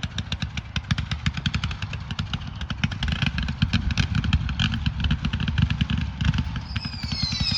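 Consumer firework, the Delta Army, going off in a fast string of sharp pops, roughly ten a second, like machine-gun fire. Near the end several whistles start, falling in pitch.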